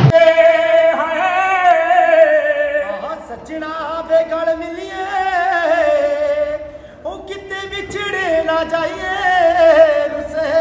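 A man singing unaccompanied in a high, ornamented folk style, holding long wavering notes in three phrases with short breaks between them.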